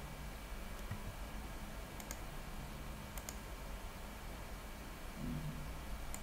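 Computer mouse clicking: three quick press-and-release double clicks, about 2, 3 and 6 seconds in, over a steady low electrical hum.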